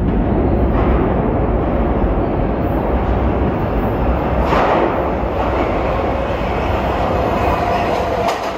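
R160 New York City subway train running on the rails, a loud steady rumble with a few sharp clicks from the wheels over rail joints.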